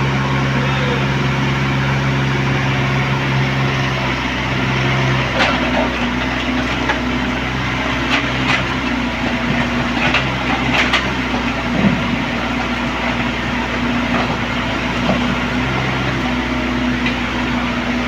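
Kobelco mini excavator's diesel engine running steadily; its note shifts about five seconds in, and there are several short sharp knocks between about five and eleven seconds in.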